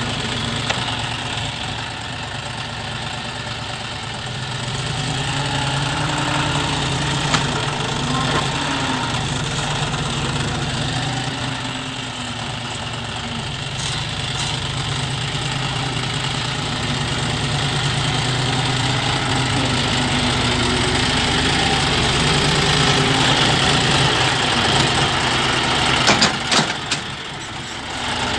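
John Deere 5038 D tractor's three-cylinder diesel engine running steadily while working its front loader, the engine note swelling and easing a few times. A few sharp knocks near the end.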